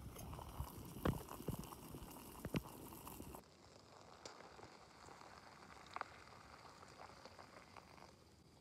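A few sharp metal clicks and clinks as a stainless camp pot's lid is lifted off. Then a faint trickle of freshly boiled water being poured from the pot.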